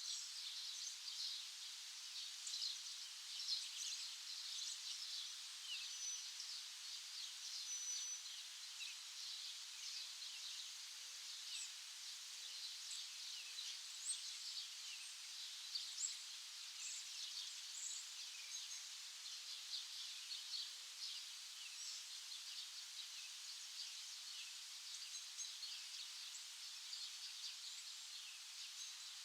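Many small birds chirping together, a dense chorus of short high calls with a couple of brief thin whistles a few seconds in.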